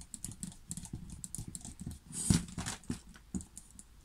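Small clicks and taps of a screwdriver, screws and a carbon-fibre quad frame being handled while a motor is screwed back onto the arm, with one louder knock a little over two seconds in.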